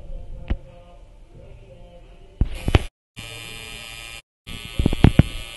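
Electric tattoo machine buzzing steadily from about two and a half seconds in, the sound cutting out twice briefly, with a few knocks around it.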